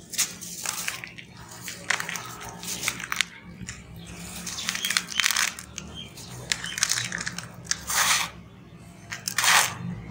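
Hands crushing and crumbling dry clumps of sand-and-cement mix with small stones in a plastic tub: gritty crunching strokes one after another, the loudest two near the end. A faint steady hum runs underneath.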